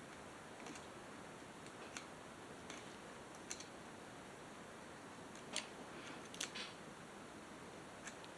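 Faint, irregular clicks and light metallic taps of small hand tools and parts being handled during reassembly of a chainsaw, a few sharper clicks a little past the middle, over a steady hiss.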